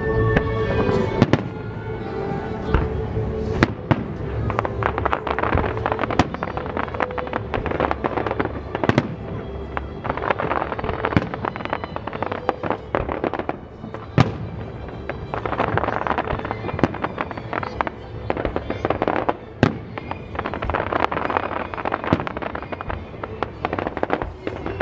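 Fireworks display: aerial shells bursting with sharp booms at irregular intervals, several a few seconds apart, and stretches of dense crackling from crackling stars in between.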